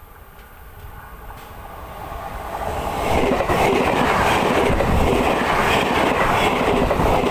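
A train approaching and passing close by on the track: its rumble grows over the first three seconds, then holds loud and steady with the wheels running over the rails.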